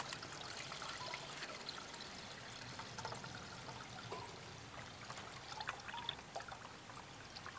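Coconut milk poured from a blender jar through a small plastic tea strainer into a stainless steel pot: a faint, steady trickle of liquid.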